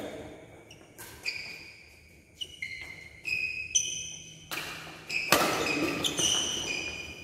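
Badminton doubles rally: sharp racket strikes on the shuttlecock and shoes squeaking on the court floor, each with short high ringing tones, echoing in a large hall. It grows busier and louder in the second half.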